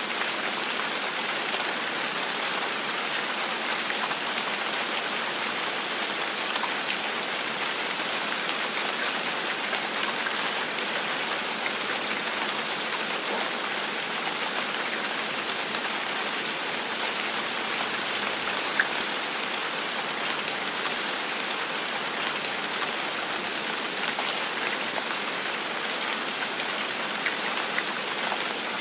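Steady gentle rain falling on a surface, an even hiss scattered with many small drop ticks.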